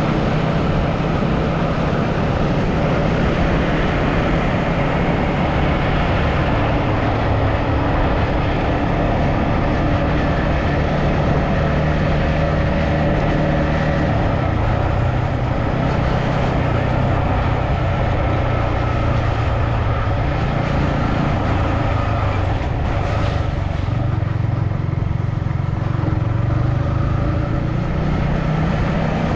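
A vehicle engine running while travelling, with steady road and wind noise, its pitch drifting up and down with speed.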